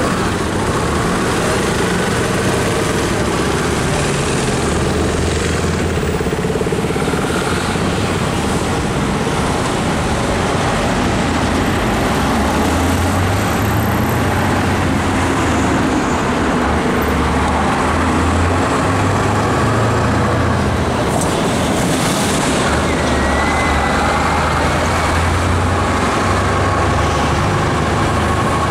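Street traffic dominated by the low, steady rumble of a Scania 144L truck's V8 diesel engine as it moves slowly with a heavy load, with cars running alongside.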